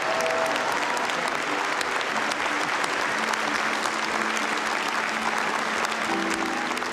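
Audience applauding steadily, with soft music of held low notes underneath.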